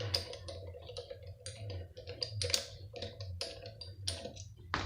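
Quick, irregular light clicks and taps of hand tools and loosened screws on the pump's casing as it is taken apart, over a faint low hum.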